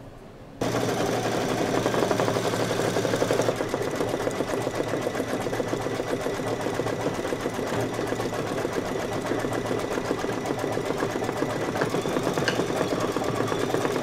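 Brother Luminaire single-needle embroidery machine starting up about half a second in, then stitching steadily with a fast, even needle rhythm. It is sewing through a thin sheet of white plastic taped over the fabric.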